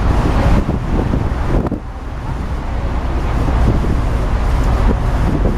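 Wind buffeting the microphone on a ship's open deck: a loud, steady low rumble that eases briefly about two seconds in.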